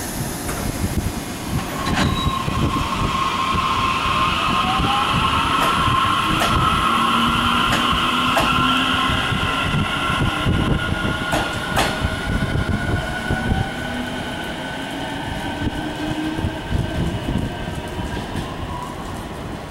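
TRA EMU600 electric commuter train pulling away from the platform. Its motors give a whine that rises in pitch as it accelerates, over a steady rumble with high-pitched tones. Sharp clacks from the wheels on the rails come now and then.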